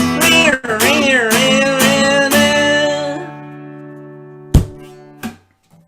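Acoustic guitar strummed to the end of the song, the last chord left ringing and fading away. About four and a half seconds in comes a sharp thump, the loudest sound here, then a softer one shortly after.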